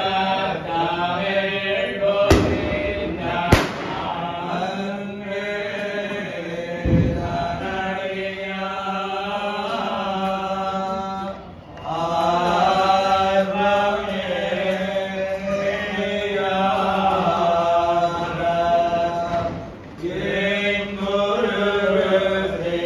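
A group of men chanting in unison, a melodic recitation held on a steady pitch, pausing briefly twice. Two sharp cracks cut through the chant about two and three and a half seconds in.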